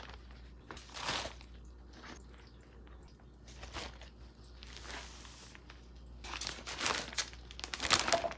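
Damp hardwood sawdust being scooped into polypropylene spawn bags, with the plastic bags crinkling. Scattered short rustles and crunches, busier near the end.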